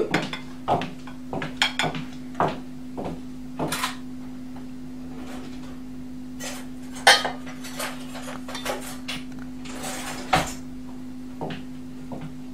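A metal serving spoon clinking and scraping against glass bowls and a plate as salad is dished out: irregular light clinks, the sharpest about 7 and 10 seconds in. A steady low hum runs underneath.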